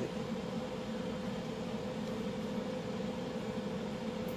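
Steady low mechanical hum with a faint constant tone above it and an even hiss, unchanging throughout.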